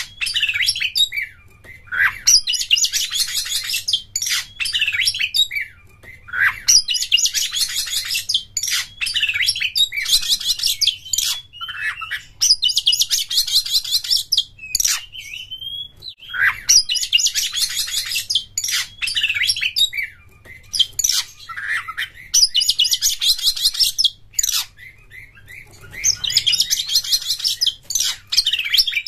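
Oriental magpie-robin (kacer) singing in a full, fast song: dense phrases of rapid high notes lasting a few seconds each, broken by short pauses and a few lower sweeping whistles.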